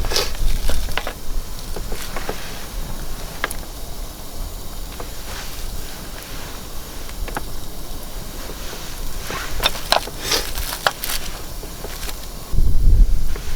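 Wood fire burning in a mesh fire pit: a steady hiss with scattered sharp crackles and pops, thickening into a quick run of pops about two-thirds of the way through. Near the end a gust of wind rumbles on the microphone.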